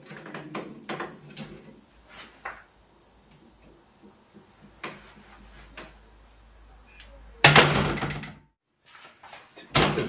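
Aluminium screen door on a pneumatic door closer: a few light knocks and clicks, then, about seven and a half seconds in, a loud clatter as the door shuts into its frame. Another loud rattle starts just before the end.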